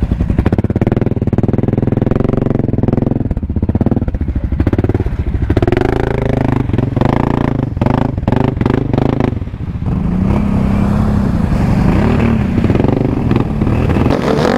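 ATV engines running and revving in deep mud. The pitch rises and falls several times, most plainly in three revs in the second half.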